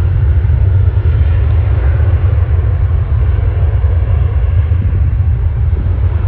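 Steady, loud low rumble of jet airliner engines at the airport.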